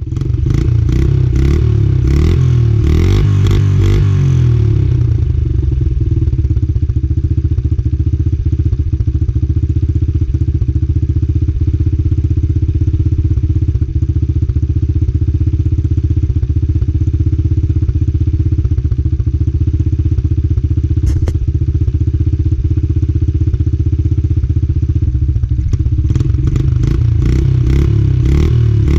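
2000 Honda XR70R's 70cc four-stroke single-cylinder engine running, heard raw through its exhaust. For the first four seconds and again near the end it runs harder with a brighter, crackly note; in between it runs at a steady, even pitch.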